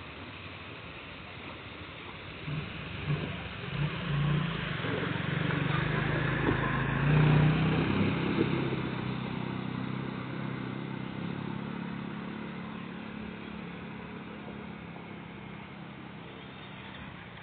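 A motor vehicle's engine passing by: it grows louder over a few seconds, peaks about halfway through, then slowly fades away.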